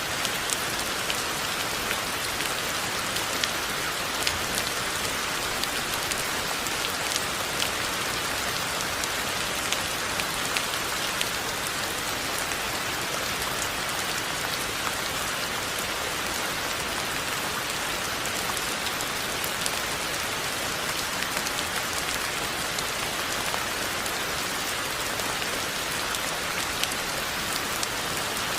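Steady rain falling, a constant hiss with many sharp drop ticks spattering on a hard surface.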